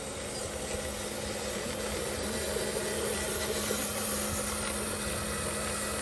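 Remote-control Hino 500 model truck driving under its own power, its drive motor and gearing giving a steady hum.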